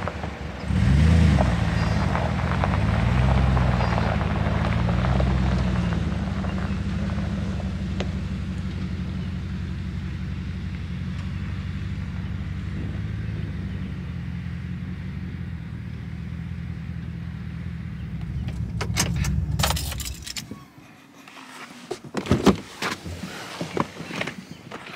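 Chevrolet Silverado pickup's engine running as the truck drives and pulls up, with its low pitch shifting. The engine is shut off about 20 seconds in, then come sharp clicks and rattles of keys and the door being opened.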